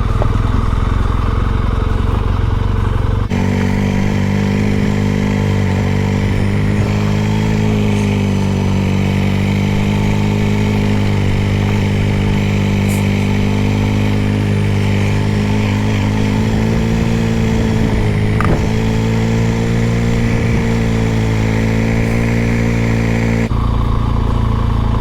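Motorcycle engine running steadily under way. Its hum changes about three seconds in and changes back near the end.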